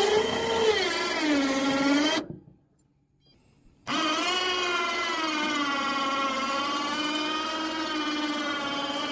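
Badland ZXR 2500 lb electric ATV winch motor whining as it pulls a nearly 3,000 lb car up trailer ramps, its pitch rising and sagging with the strain. The motor stops about two seconds in, then starts again and runs steady under load.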